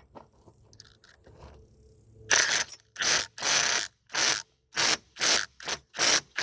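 Milwaukee impact driver hammering a lag bolt in through a Klein flip impact socket. It is pulsed in about nine short bursts, starting about two seconds in, so the bolt is not yet driven all the way home.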